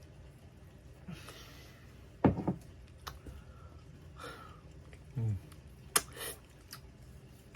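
Mouth sounds of a person eating: scattered clicks and smacks, a loud knock about two seconds in, a couple of breaths, and a short low falling hum about five seconds in.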